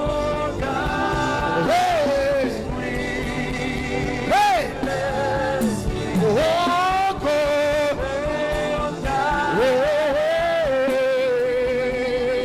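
Live gospel worship music: a lead singer holds long notes with a wavering pitch and slides between them, with no clear words, over steady instrumental accompaniment.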